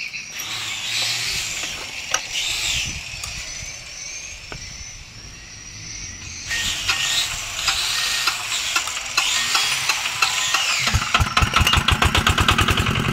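Yanmar single-cylinder diesel engine being started by hand, with mechanical clatter and cranking noise, then catching about eleven seconds in and running with a rapid, even firing knock.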